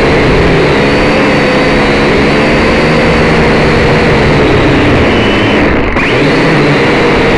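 Syma X5C toy quadcopter's four small brushed motors and propellers whining, heard from its own onboard camera. The pitch wavers up and down as the throttle changes, with a brief dip about six seconds in.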